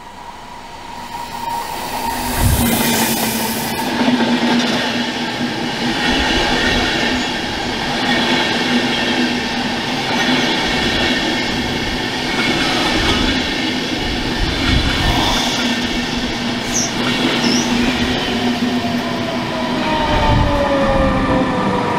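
Electric passenger train of SBB coaches rolling along the platform, its wheels and running gear making a steady rumble that builds over the first couple of seconds. A couple of brief high squeals come about two-thirds of the way in. Near the end a whine falls steadily in pitch as the red electric locomotive at the train's end draws close.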